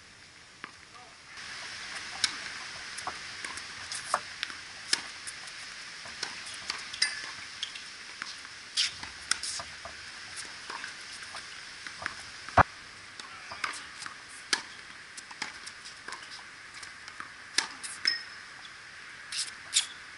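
A tennis rally on a hard court: sharp pops of the ball struck by rackets and bouncing, coming at uneven intervals, the loudest about twelve seconds in, close to the near player. A steady hiss runs underneath from about a second in.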